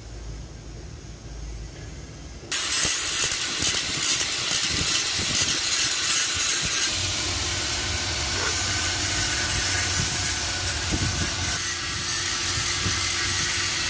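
Handheld electric angle grinder grinding into the concrete at the foot of a wall, a harsh steady grinding hiss with a thin high whine. It cuts in suddenly about two and a half seconds in, after a low rumble.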